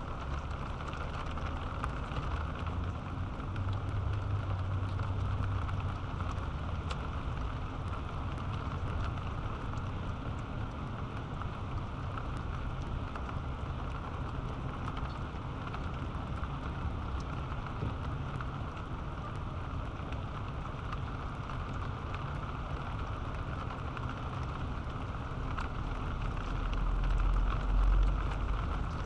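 Steady rain falling on and around a nest box, picked up by the box's webcam microphone. Low rumbles come and go, the strongest near the end.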